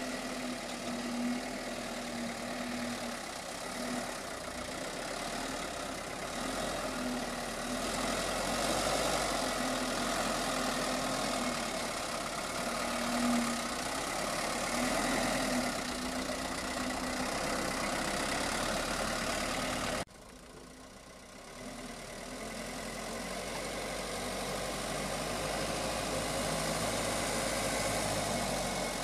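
Engine of a Hino light truck loaded with cassava, running steadily at low speed as the truck crawls through mud and ruts. The sound drops off abruptly about two-thirds of the way through, then builds back up as the truck comes on.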